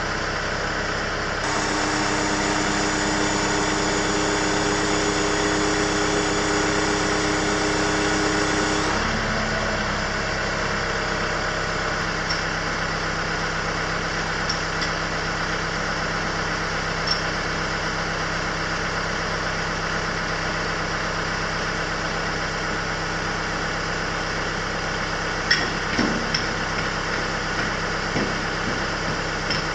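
An engine running steadily, its hum shifting in pitch about nine seconds in, with a couple of short knocks near the end.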